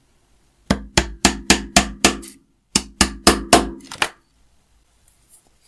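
Small steel hammer tapping thin metal pins into the rosewood stock of a homemade try square: two quick runs of light, even taps, about four a second, with a short pause between them.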